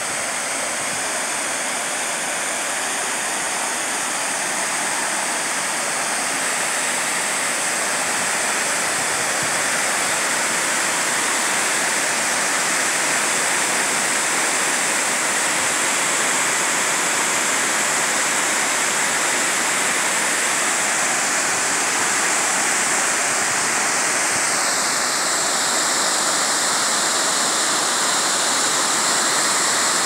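Water cascading from a large fountain over a wall in a wide sheet and splashing into a shallow pool below: a steady, unbroken rush of falling water.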